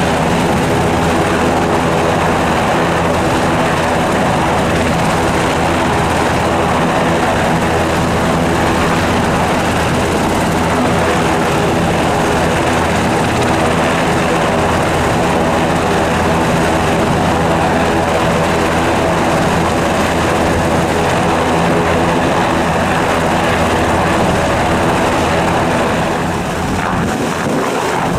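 Sikorsky S-92 helicopter turning its rotors on the ground, with a loud, steady running sound from its twin turboshaft engines and main rotor. Near the end the sound shifts and dips slightly as the helicopter begins to lift.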